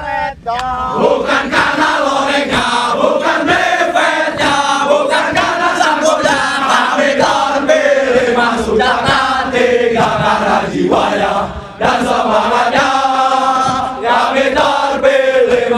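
A large group of soldiers chanting a yel-yel, a military spirit chant, in unison: many men's voices singing and calling together, with a brief break about twelve seconds in.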